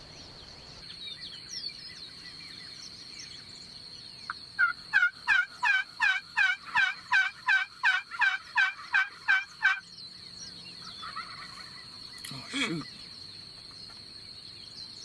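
Wild turkey yelping: a long run of about sixteen evenly spaced notes, each falling in pitch, about three a second for some five seconds, then one shorter call near the end.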